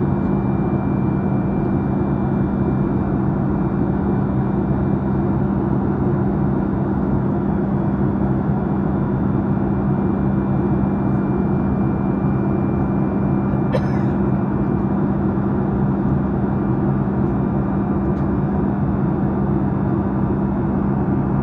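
Steady cabin drone of a Boeing 737 MAX 8 in the climb: the rush of air and the hum of its engines, with fixed low hum tones. A brief click about two-thirds of the way through.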